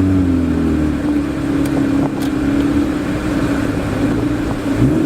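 Car engine and road noise heard from inside the cabin while driving: a steady drone with a low hum under it.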